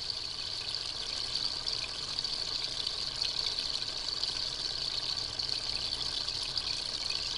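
Steady trickle of running water, an even hiss that does not change.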